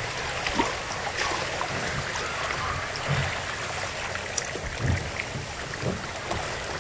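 Water rushing steadily down a water slide, with a few soft low thumps.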